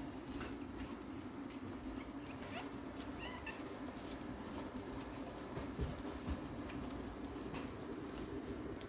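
Chihuahua puppies scampering on a wooden floor: light scattered clicks of paws and claws, a couple of soft thumps about six seconds in, and two short high squeaks about two and a half and three seconds in, over a steady low drone.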